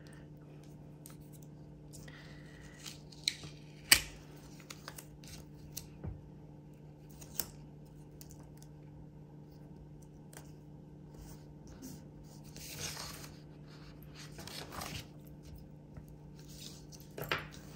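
Quiet handling of planner paper and stickers: scattered light clicks and taps, the sharpest about four seconds in, and a few soft paper rustles later on.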